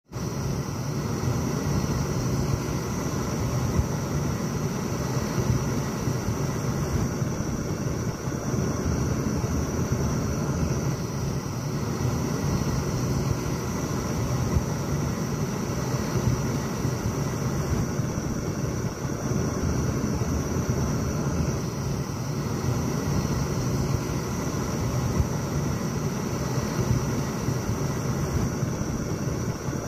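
Twin-tip gas brazing torch burning with a steady rush of flame as it heats a copper refrigerant pipe joint for an AC leak repair, with a thin high hiss over it.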